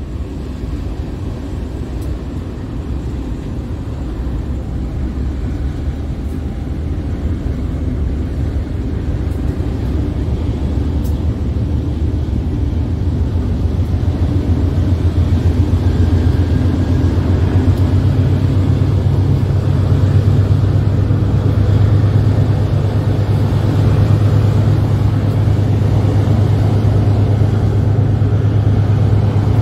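Steady low vehicle rumble, heard from a car driving alongside a loaded MRS diesel freight train. It builds in loudness through the first half, and a low drone grows stronger and rises slightly in pitch after about 18 seconds.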